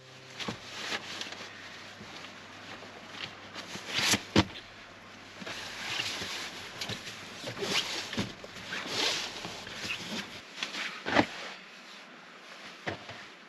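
Irregular rustling and handling noises, with scattered sharp clicks and knocks. The loudest come a little after four seconds and about eleven seconds in.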